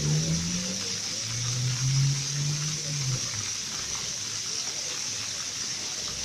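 Water jets of a musical fountain spraying and splashing back into the pool, a steady hiss. For the first three seconds there are also low droning tones.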